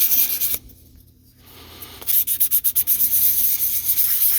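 Fine-grit sandpaper rubbed by hand over pitted, rusted metal in quick back-and-forth strokes. The sanding stops about half a second in, then starts again about two seconds in.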